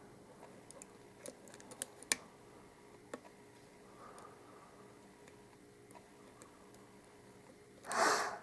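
Lock pick and tension wrench working the pins of an Abus Titalium 83/40 padlock during single-pin picking: faint scattered clicks and ticks, a few sharper ones in the first few seconds. A brief louder rush of noise near the end.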